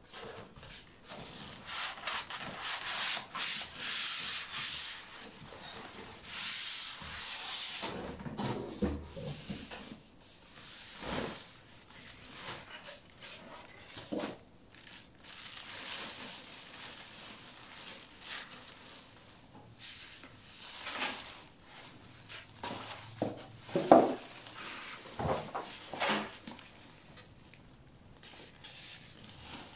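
Hand unpacking: plastic wrap rustling and polystyrene foam and cardboard packing rubbing and scraping as a boxed unit is slid out and its foam end cap pulled off. Several knocks come in the last third, one of them sharp and loud.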